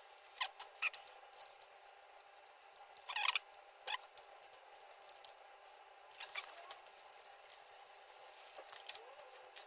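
Scattered light clicks and short high squeaks from hand work on brake parts, over a faint steady hum.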